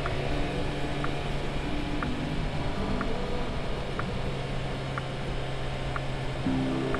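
Motorcycle engine running steadily on the road, under a heavy rush of wind noise.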